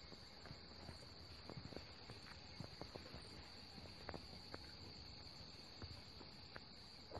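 Faint, steady high-pitched trilling of crickets, with scattered faint ticks.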